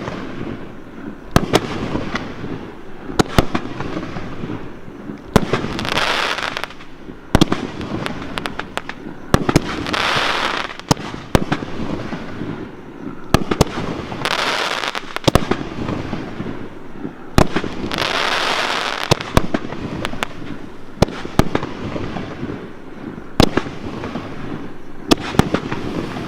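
6-inch canister firework shells being fired from mortar tubes: a run of sharp booms and bangs from the lifts and bursts, with a second-long hissing, crackling stretch about every four seconds.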